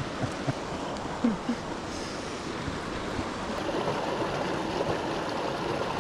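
Mountain creek rushing and splashing over boulders in a small cascade, a steady wash of water noise.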